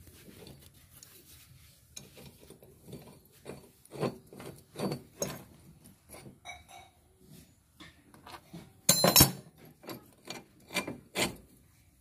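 Spanners working the rusty steel linkage of a tractor rotavator's rear flap: irregular metal scraping, clicks and knocks as a nut is turned and parts are handled. One loud metallic clank with ringing comes about nine seconds in.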